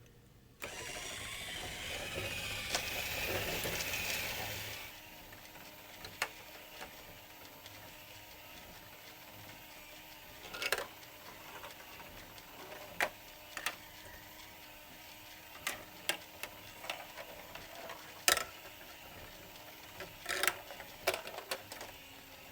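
Plastic building-block marble run: marbles rattle and roll along the track for about four seconds. Then a quieter steady mechanical run, likely the wheel elevator, continues under scattered sharp clacks of marbles striking the track.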